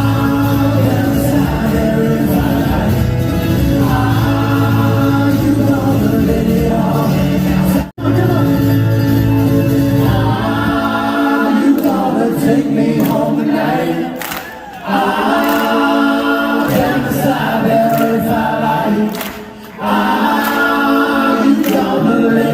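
Layered vocal harmonies sung a cappella, with no words picked out. There is a brief break about eight seconds in, and the low part drops away about three seconds later.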